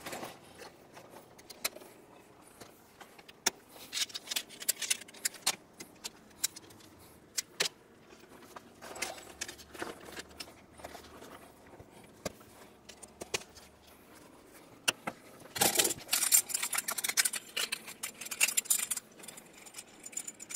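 Moon Shade portable awning being put up: its fabric rustling as it is pulled out and its metal poles clicking and clinking as they are fitted. Scattered single clicks at first, becoming a busy stretch of rustling and clatter over the last few seconds.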